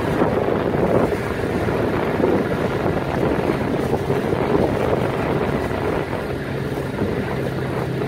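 Wind buffeting the microphone and rough, churning water around a small open motorboat, with the boat's engine running underneath. The engine's steady hum stands out more clearly in the last couple of seconds.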